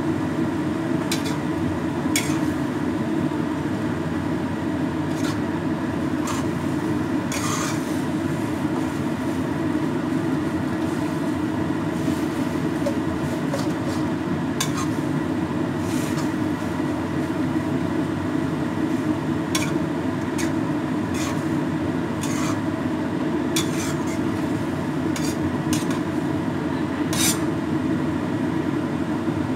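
Utensils scraping and clicking against a wok while rice vermicelli is stir-fried, in short irregular strokes over a steady low roar.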